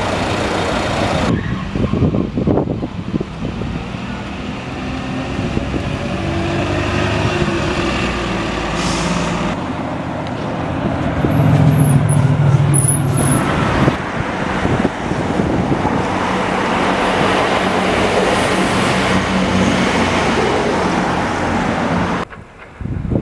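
Diesel bus and coach engines running close by, with a short hiss near the middle. The loudest part is a low engine drone as a coach drives past.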